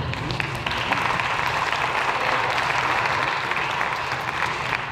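Audience applauding, building up in the first second and dying down near the end.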